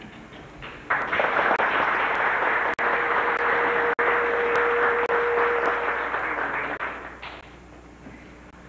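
Audience applauding, starting about a second in and dying away after about six seconds, with a steady tone held through the middle of the clapping.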